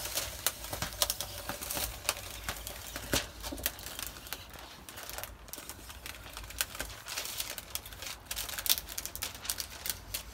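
Thin plastic film crackling and clicking as it is peeled and pulled away from the van's sheet-metal roof panel, an irregular run of small clicks.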